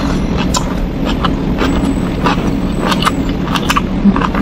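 Close-miked chewing of a mouthful of rice and urap of cabbage and bean sprouts: many short, irregular wet mouth clicks and crunches, over a steady low hum.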